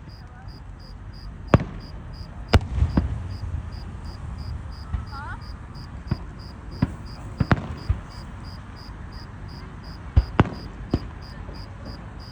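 Fireworks going off in sharp, irregular bangs, about ten of them, some in quick pairs. A cricket chirps steadily behind, about three chirps a second.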